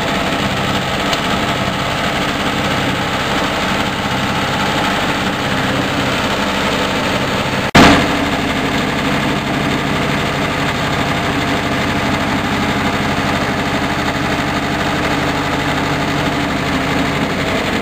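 Red single-cylinder diesel engine driving a rice-husk grinding mill, running steadily under load with a fast knocking beat as husks are milled into fine powder. A brief break and loud click about eight seconds in.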